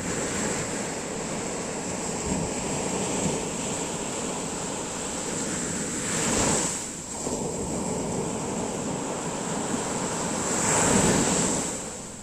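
Sea surf washing steadily onto the shore, with two bigger waves breaking, one about halfway through and one near the end.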